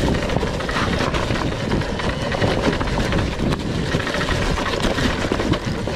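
RFN electric dirt bike riding over loose rocks: a steady clatter of knocks and rattles from the tyres, chain and suspension, with wind on the microphone.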